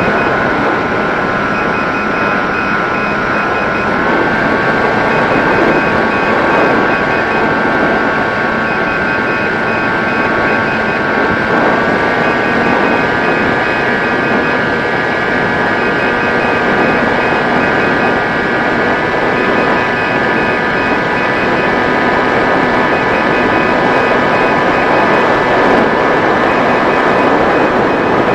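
Mini Drak flying wing's electric motor and propeller whining steadily over wind rush, the pitch stepping up slightly three times.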